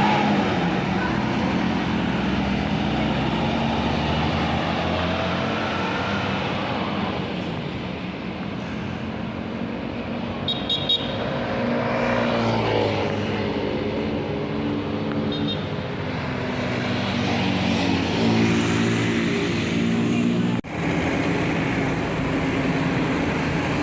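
Tour buses driving past on a road, their diesel engines running amid traffic noise; the sound breaks off abruptly for a moment near the end.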